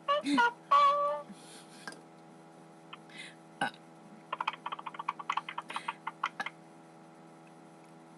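A person's voice: a few short pitched vocal sounds at the start, then after a pause a rapid run of short pulsed vocal sounds, about ten a second, lasting about two seconds.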